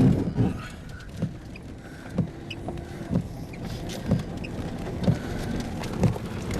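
Car moving slowly, heard from inside the cabin: a steady low engine and road rumble with a soft thump repeating about once a second.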